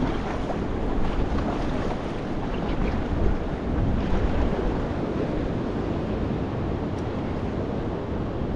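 Wind buffeting the microphone over the steady wash of choppy sea water around a small boat.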